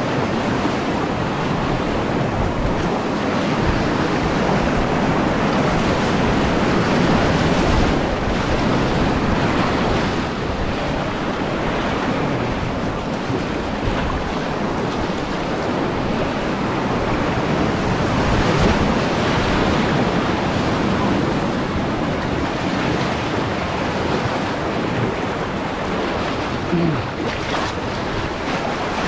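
Whitewater rapids rushing steadily around an inflatable kayak running a river at high flow (about 2050 CFS), with water splashing at the bow. Wind buffets the microphone.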